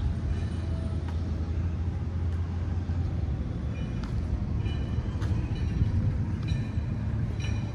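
Detroit DD15 inline-six diesel in a Western Star 5700XE heavy truck idling with a steady low hum.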